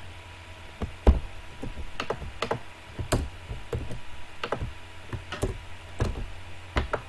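Computer keyboard typing: irregular keystrokes and clicks while values are entered, with a louder thump about a second in.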